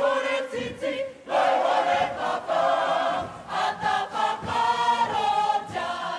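Kapa haka group of men and women singing together in unison with held notes, with a brief break about a second in.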